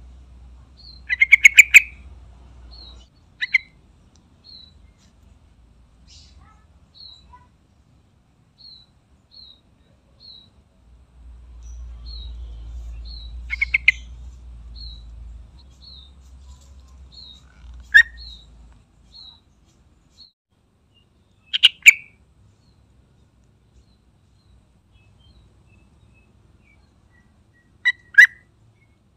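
Yellow-vented bulbul calling in short, loud bursts of rapid chattering notes, six times, a few seconds apart. A faint high chip repeats steadily in between.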